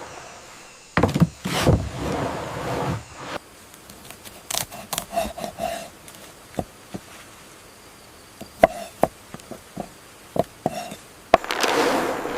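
Two short whooshing swells, then a long run of scattered, irregular light knocks and clicks, some with a brief ring, like small hard objects tapping and clattering.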